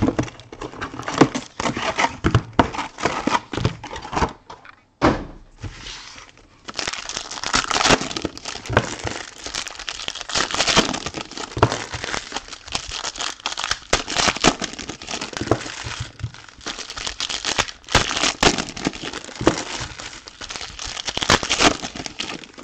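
Foil-wrapped Topps Premier Gold card packs crinkling as they are handled and torn open, with knocks and taps as the box is opened and packs are set down on the table. After a quieter moment about five seconds in, the crinkling becomes dense and continuous.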